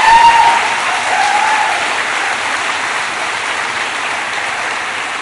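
Audience applauding, loudest at the start and slowly dying away.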